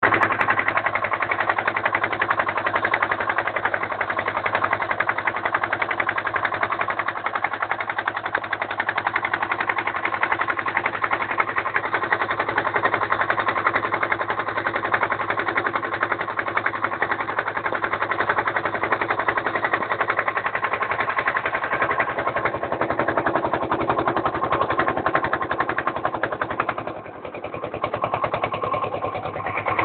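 Motorboat engine running with a fast, steady chugging; the sound dips briefly near the end.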